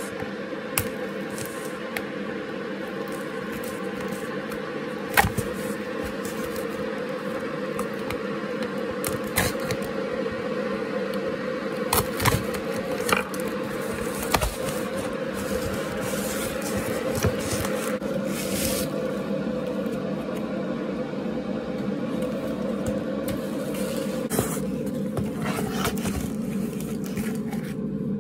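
A cardboard parcel being opened by hand: packing tape pulled and cardboard scraped and handled, with scattered sharp clicks and rustles over a steady background hum.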